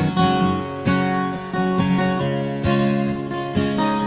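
Acoustic guitar strumming chords in a steady rhythm, each chord ringing on until the next stroke.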